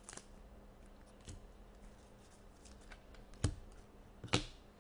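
Upper Deck Ice hockey trading cards, some of them stiff clear acetate, being flipped through by hand: quiet sliding with a few sharp flicks, and two louder snaps near the end.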